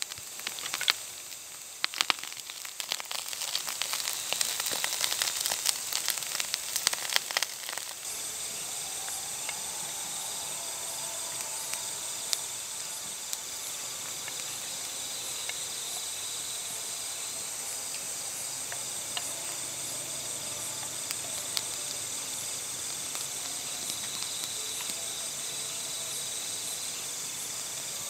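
Campfire crackling with many sharp pops for the first several seconds. The pops then die down, leaving a steady night chorus of crickets and other insects with only an occasional faint pop.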